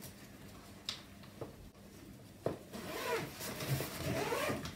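A zipper on a stroller bassinet's storm cover is pulled along to fasten the cover onto the top of the carrycot. A few light clicks come first, then a longer rasping run of the zipper over the second half.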